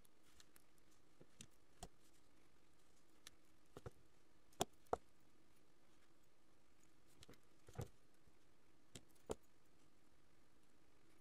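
Faint, scattered clicks of brass jump rings and pliers being handled while a chain is woven, the two loudest close together about four and a half seconds in, over a faint steady hum.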